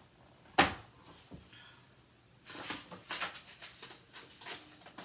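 A sharp knock, then the dry rustle and flutter of a picture book's paper page being turned.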